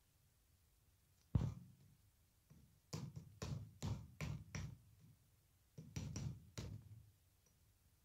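A caged bird's beak knocking against a hard almond shell as it works to crack it. One sharp knock comes first, then a quick run of about five, then four more.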